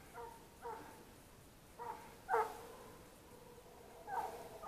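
Russian hound baying on the chase, about five short, faint calls at uneven intervals, the loudest about halfway through: the hound giving voice as it runs a trail.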